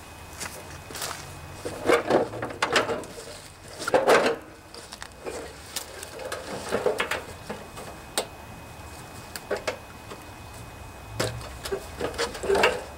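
Irregular knocks, thumps and sharp clicks, about a dozen spread through, the loudest around two and four seconds in.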